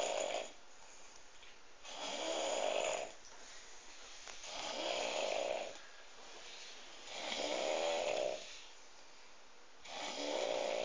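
A drunk person snoring heavily: a long snore about every two and a half seconds, each over a second long, with quieter breathing between.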